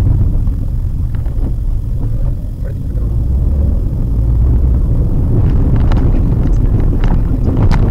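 Low, steady rumble of tyre and road noise heard inside a Maruti Suzuki WagonR's cabin on a rough, patchy road. From about five and a half seconds in come scattered sharp knocks and rattles as the car goes over bumps.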